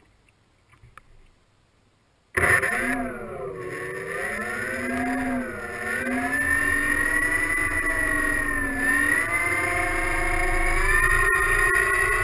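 Four 750 kV electric motors and propellers of a large RC flying boat whining together, cutting in suddenly about two seconds in. Their several pitches weave up and down with the throttle, then climb near the end.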